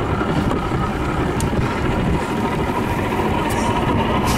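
Canoe paddles splashing into choppy water beside a cardboard boat, a few short splashes standing out over a steady low rumble of wind on the microphone.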